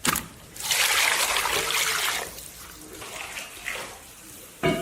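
Running water splashing, loud for about a second and a half, then fainter.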